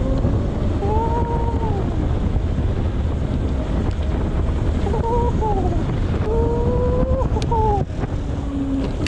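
Wind buffeting the microphone while riding an electric bicycle. Over it, the bike's electric motor whines, rising and then falling in pitch several times as it speeds up and slows down.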